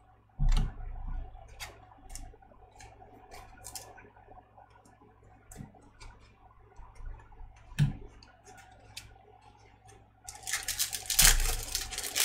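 Trading cards being handled, with scattered light clicks and taps and a couple of soft thumps, then a foil card-pack wrapper crinkling loudly as it is torn open near the end.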